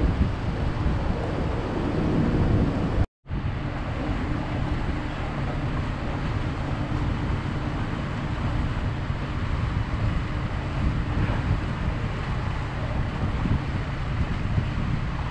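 Boat engine running at a steady low drone, with wind buffeting the microphone. The sound breaks off for a moment about three seconds in, then goes on unchanged.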